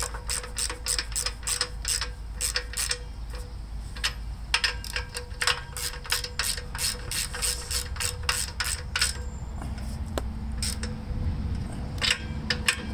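Ratchet wrench clicking in quick runs of about four clicks a second, with short pauses, as nuts are snugged down to tension the engine's fan belt.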